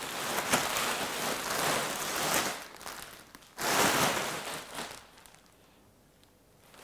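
Large plastic mailing bag rustling and crinkling as it is shaken and waved about, with a fresh loud burst of crinkling about three and a half seconds in; the last couple of seconds are nearly silent.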